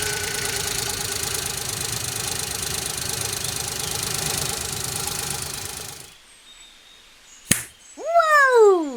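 Tractor engine sound running steadily, then cutting off about six seconds in. After a short quiet gap comes a single click, then a swooping tone that rises briefly and falls near the end.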